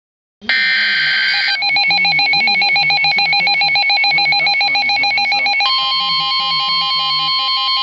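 Emergency Alert System tones on a TV broadcast. A short dense burst of electronic data noise is followed by rapid beeping in several fixed pitches. About two thirds of the way through, the beeping changes pattern over a steady high alert tone.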